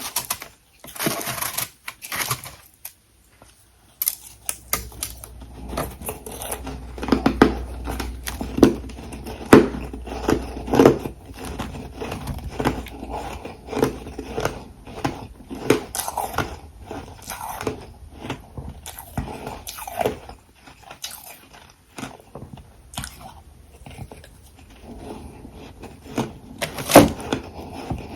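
A person biting and chewing hard refrozen ice close to the microphone: a long run of irregular, sharp crunches. There is a brief pause a few seconds in, and one especially loud crunch near the end.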